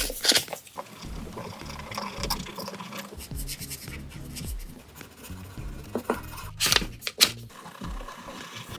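Paper being handled: rustling and scratching, with sharp crackles near the start and a cluster of louder crinkles about six and a half to seven seconds in.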